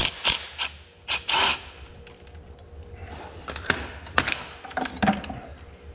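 Short bursts from a cordless impact driver and sharp metal knocks and clinks as bolts and the tractor's hydraulic valve body are worked loose and handled. The knocks come in a quick cluster in the first second and a half, then a few more a couple of seconds later.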